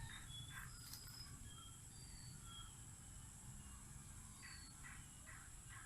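Near silence: faint rural outdoor ambience with a low rumble and scattered short, thin, high chirps from distant birds.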